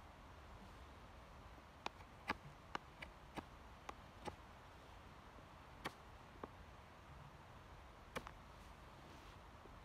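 Knife blade carving a wooden stick: about ten short, sharp clicks of single cuts at an uneven pace, starting about two seconds in and thinning out after the middle, over a faint hiss.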